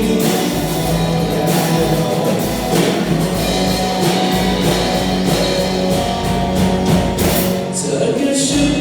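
Rock band playing an instrumental passage between sung sections: guitar over a drum kit, with held notes and a steady beat.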